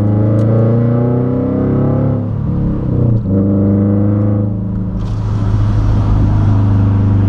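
Subaru Impreza's FB20 flat-four with an unequal-length header, heard from inside the cabin, pulling up through the revs under acceleration. A gear change about two and a half seconds in drops the pitch before it climbs again, and a hiss of road noise joins about five seconds in.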